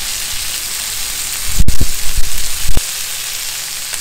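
Pieces of eel and other fish shallow-frying in coconut oil in a flat pan, sizzling steadily, nearly done. In the middle of it come a sharp click and a few short low thumps as the steel spatula works in the pan.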